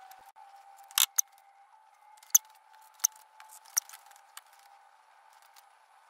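A run of sharp clicks and taps, about six of them spread over a few seconds and loudest about a second in, from handling a small metal tool and a 3D-printed plastic pattern against a sand-casting mould and its steel flask.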